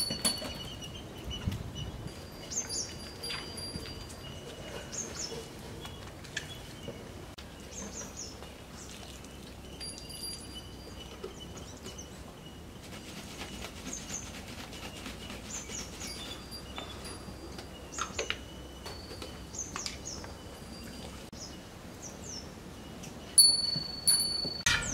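Outdoor rural ambience with small birds chirping and whistling on and off. A few sharp knocks; the loudest comes near the end.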